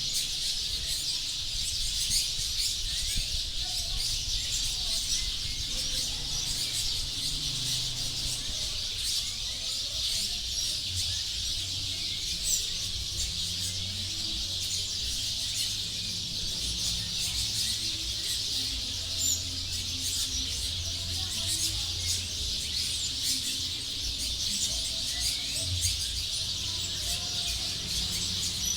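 Dense, unbroken chorus of many small birds chirping together as a flock settles to roost in a tree at dusk.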